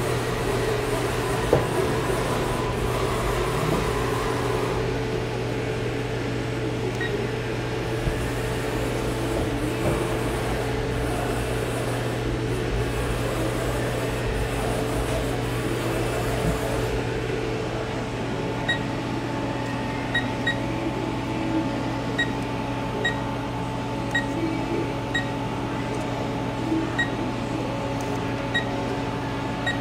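Steady hum and fan noise of a powered-up 1994 Haas VF-4 vertical machining center standing idle, spindle not cutting. About two-thirds of the way in, short high beeps start coming roughly once a second.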